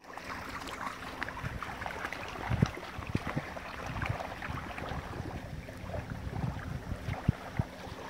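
Shallow lake water splashing and lapping around huskies wading in from the shore, with many small splashes. Wind buffets the microphone in low thumps, the strongest about two and a half seconds in and again near the end.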